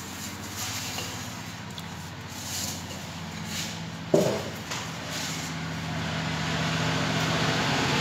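Electric fuel pump, powered from a 12-volt battery and submerged in a basin of fuel, running with a steady hum that grows louder through the second half. A single metallic knock about four seconds in.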